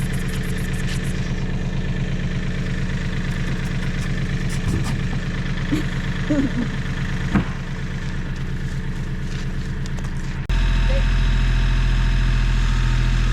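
A generator's engine runs steadily. About ten seconds in, the sound cuts abruptly to a louder, deeper engine hum.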